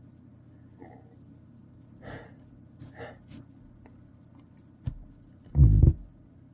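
A man sniffing and taking short, sharp breaths in as a sneeze builds, then one loud gasp a little over five and a half seconds in.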